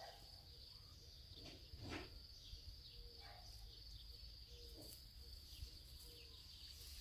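Faint outdoor ambience: a steady high insect trill, with a few faint short calls and soft rustles in the grass.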